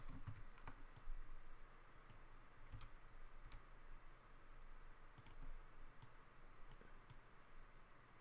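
Faint, irregularly spaced clicks of someone working at a computer, about eight in all, a couple of them in quick pairs, over quiet room tone.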